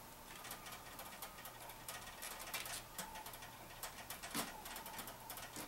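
Faint, irregular clicks and handling noise of small hard parts as a water-cooling compression fitting is handled and fitted onto tubing, with one sharper click a little past the middle.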